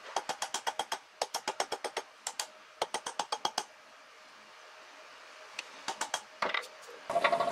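Quick hammer blows on red-hot steel held in tongs on an anvil, several a second in runs, each with a short metallic ring. The blows are forging a decorative scroll curl. They pause for about two seconds midway, then come a few more. Near the very end a louder steady noise cuts in.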